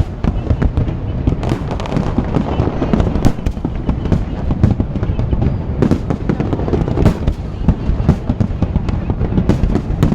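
Fireworks display going off continuously: a dense, rolling low rumble of bursts with many sharp cracks and crackles overlapping throughout.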